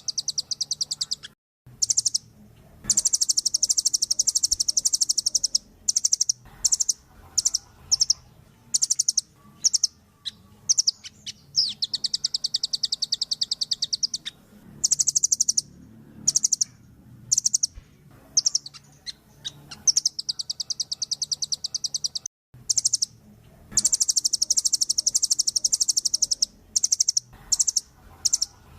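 Velvet-fronted nuthatch calling: runs of rapid, sharp, high-pitched notes in fast trills, some lasting a few seconds and others short bursts, with pauses between.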